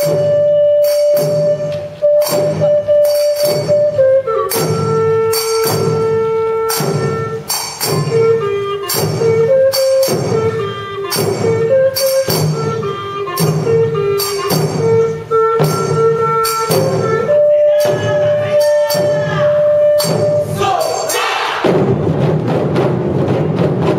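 Taiko drum ensemble music: a flute plays a slow melody of held notes over a steady beat of sharp metallic strikes and drum hits. About 21 seconds in, loud massed taiko drumming takes over.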